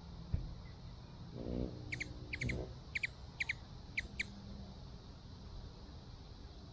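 A small bird giving a quick run of short, sharp chips, about eight in two seconds, with a couple of lower, short calls just before and among them and a single click near the start.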